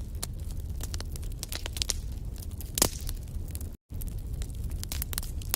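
Wood fire crackling in a fireplace: a steady run of small sharp pops and snaps over a low rumble, with one louder pop about halfway through. The sound cuts out for an instant a little before the four-second mark.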